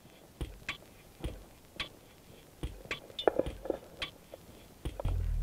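Faint, irregular sharp clicks, about one or two a second, with a low rumble coming in near the end.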